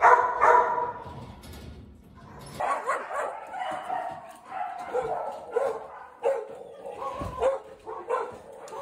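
A dog barking: two loud barks right at the start, then after a short lull a long string of shorter, higher yips and whines.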